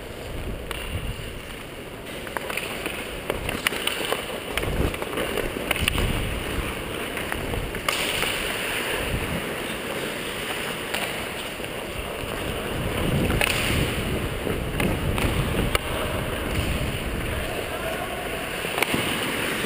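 Ice skate blades scraping and carving on the ice, with air rushing over a helmet-worn camera's microphone, louder in surges as the wearer skates hard. Scattered sharp clacks of sticks and puck, with faint distant shouts from players.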